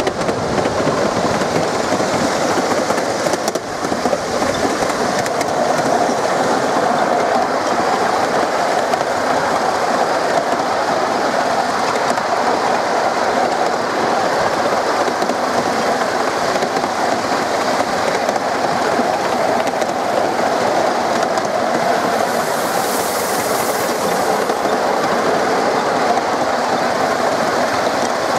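Miniature passenger train running along its track, heard from a riding car: a steady rumble and clatter of small wheels on the rails. A brief high hiss about three-quarters of the way through.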